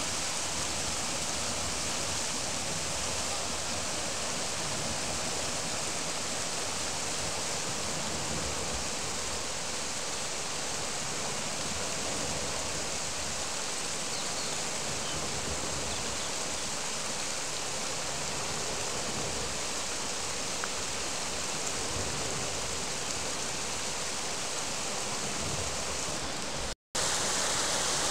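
River water rushing steadily over a low concrete weir. The sound drops out for a split second near the end.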